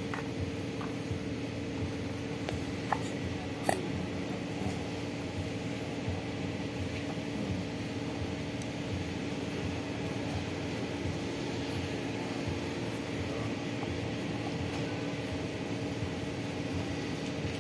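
Steady machine hum with two held tones, and a few light clicks in the first four seconds.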